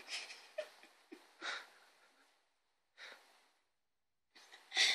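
Short, soft puffs of breath close to the microphone, about five of them at irregular gaps, the last one near the end being the loudest.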